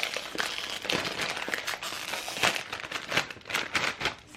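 Rap Snacks potato chip bag crinkling and crackling as it is handled and opened.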